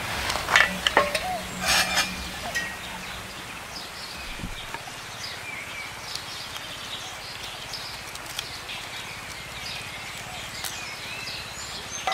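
Several sharp knocks of sticks of firewood being handled in the first two seconds, then a quieter stretch of birds chirping in the background while dry twigs are fed into a small wood-burning stove, with a few faint clicks.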